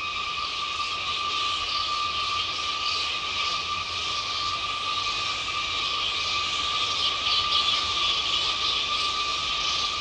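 A large colony of roosting fruit bats chattering and squabbling in a dense, continuous high-pitched din, over a steady whining tone.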